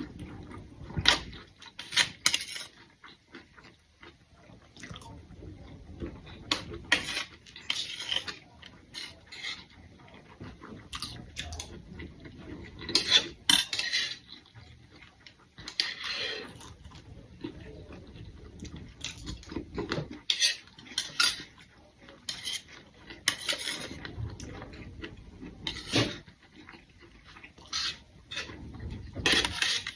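Spoons and forks clinking and scraping against plates in quick, irregular strikes as food is scooped up and eaten.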